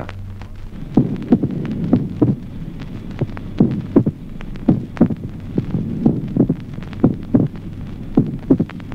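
Recorded heart sounds of slow atrial fibrillation: short low beats coming at uneven intervals, each second heart sound followed closely by a mitral opening snap at a short interval, the sign of mitral stenosis. A steady low hum runs underneath.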